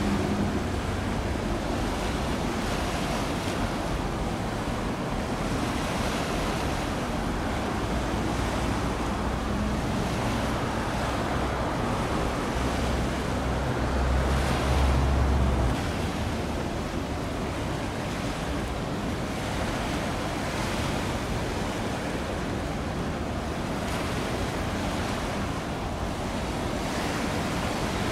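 Steady rushing noise of wind on the microphone over moving water. About halfway through a low rumble swells, then cuts off suddenly.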